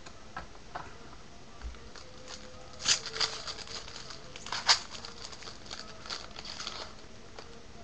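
Foil wrapper of a jumbo pack of 2013 Topps baseball cards crinkling as it is torn open. A run of crackles, loudest about three seconds in and again near five seconds in.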